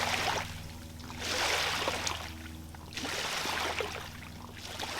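Incoming tidal water washing against the river bank in repeated surges, about one every second and a half, over a steady low hum.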